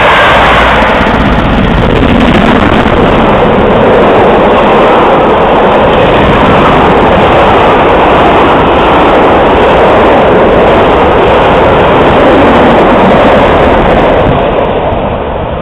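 A Class 47 diesel locomotive and its long train of passenger coaches passing close by at speed, a loud steady rush of wheels on rail and moving air that eases slightly near the end.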